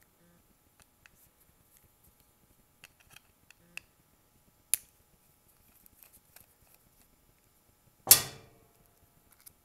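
Small screwdriver ticking and clicking against the metering-cover screws of a Zama diaphragm carburetor as they are backed out, with scattered faint clicks and a sharper click just under five seconds in. About eight seconds in comes a loud metallic clank with a short ringing tail.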